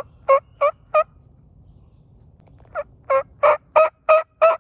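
A series of wild-turkey yelps, short pitched notes about three a second: four in the first second, then a run of six after a pause of nearly two seconds.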